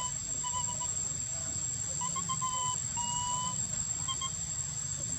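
Baby monkey giving a string of short, thin, whistle-like cries, some dipping slightly in pitch, several in a row.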